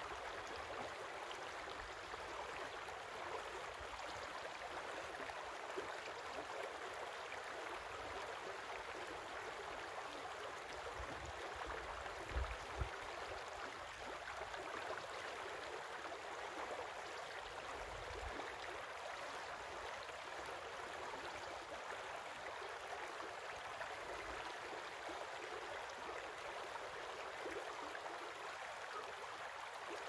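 Shallow creek running over a stony riffle: a steady rush and babble of flowing water, with a couple of brief low thumps about twelve seconds in.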